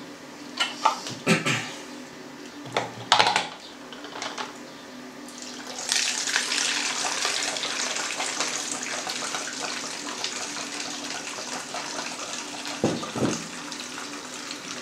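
Bread kvass poured from a steel pot through a funnel into a beer bottle: a steady splashing stream that starts about six seconds in and keeps running. Before it, a few sharp clicks and knocks; two more short knocks near the end.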